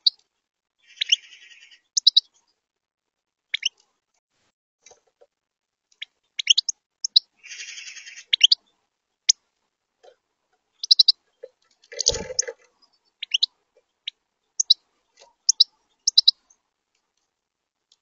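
European goldfinches calling at a feeder: short, high chirps scattered throughout, with two brief bouts of buzzy twittering. One low thump about two-thirds of the way through.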